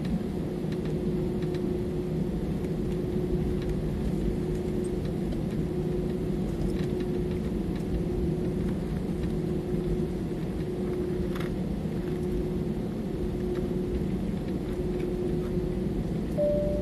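Steady jet engine rumble and hum heard inside an airliner's cabin while it taxis. A short, higher steady tone sounds right at the end.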